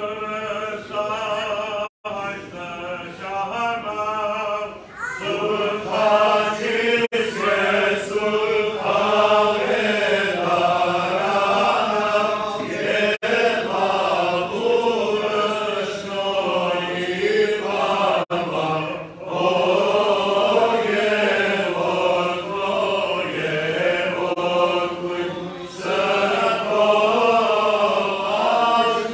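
Men's voices chanting an Armenian liturgical hymn, long held notes that waver and turn, with short breaks for breath between phrases.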